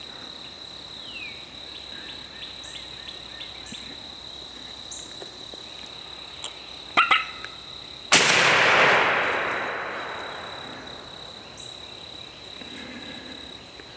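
A single shotgun blast about eight seconds in, sudden and loud, echoing and fading through the woods over about two seconds, over a steady high insect trill. Two short sharp sounds come about a second before the shot.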